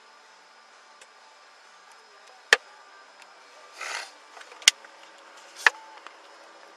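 Three sharp knocks and a short rustle of handling close to a body-worn camera's microphone, over the steady hum of a patrol car's cabin.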